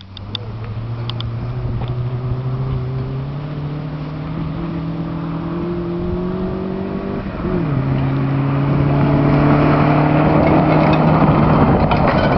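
Rally car engine accelerating hard on a dirt stage, its pitch climbing steadily, dropping on an upshift about seven seconds in, then climbing again. It grows louder toward the end as the car nears, with rising gravel and tyre noise.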